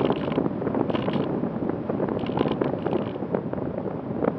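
Rushing wind buffeting the onboard camera microphone of an Easy Star 2 RC plane in flight. Under it is a faint steady hum from its electric pusher motor. Short hissy gusts come about once a second.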